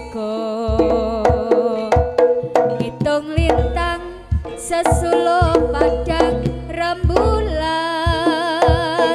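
Live East Javanese jaranan ensemble playing: quick kendang hand-drum strokes under a wavering, ornamented lead melody, with low sustained tones underneath that drop out near the end.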